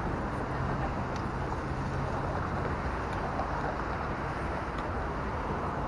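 Steady city street traffic noise from cars and trams, with a low engine hum that fades out about two seconds in.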